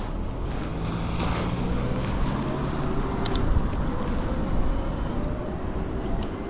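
Wind buffeting the microphone over a steady road rumble while riding an e-bike along.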